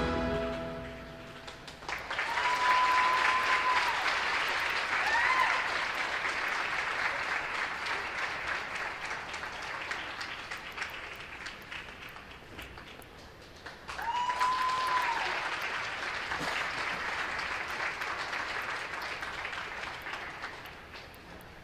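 Rink audience applauding and cheering at the close of a figure skating program, with a few long high calls ringing out over the clapping. The last of the program music fades away first; the applause swells again about halfway through, then dies down near the end.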